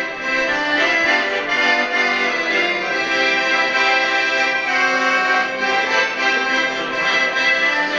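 Two piano accordions playing a traditional Swiss tune together, with held chords under the melody.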